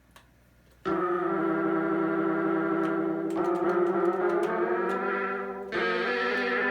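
Amiga 500's built-in sound playing a sustained synthesizer note from Aegis Sonix 2, starting about a second in. Its tone shifts partway through and a new note starts near the end, as the patch's filter setting is tried out.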